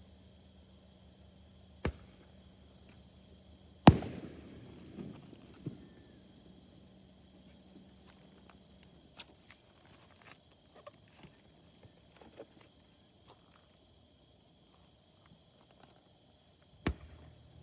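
Fireworks bursting: a sharp bang about two seconds in, a louder one about four seconds in that trails off in a rumbling echo, a scatter of smaller pops and crackles after it, and another bang near the end. Insects chirr steadily in the background.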